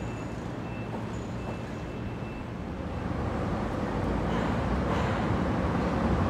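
Low rumble of urban vehicle traffic, growing gradually louder from about three seconds in.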